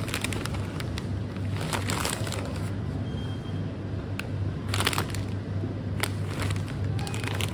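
Crinkling and crackling of packaging being handled, in several short bursts, over a steady low hum.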